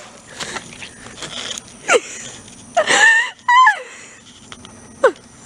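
Person wheezing and letting out several short, high-pitched strained cries, the loudest about three seconds in, in pain from the burn of an extremely hot chili lollipop.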